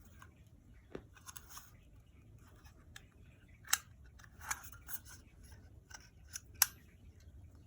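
Small scattered clicks and brief rustles from handling a pop-up RFID card holder and its packaging, with two sharper clicks, one just past the middle and the loudest near the end.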